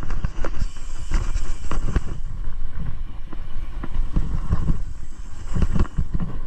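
Mountain bike rolling along a dry, stony dirt trail: a constant low rumble of tyres and wind with frequent sharp knocks and rattles as the wheels hit bumps and stones.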